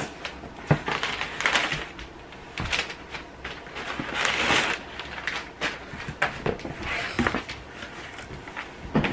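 Cardboard box flaps and paper packing being handled: scattered knocks and taps, with a longer stretch of rustling and crinkling about four seconds in.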